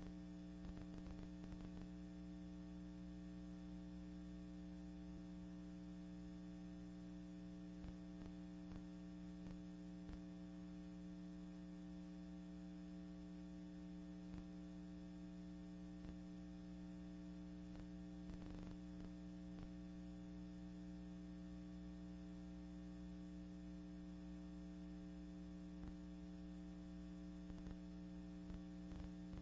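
Steady low electrical hum with several overtones, and faint scattered clicks of static.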